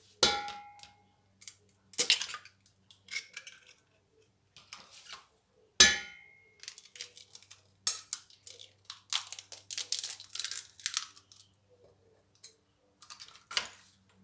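Eggs knocked against the rim of an enamel pot: two sharp knocks that ring briefly, near the start and about six seconds in, then a run of crackling as the shells are broken open over the pot.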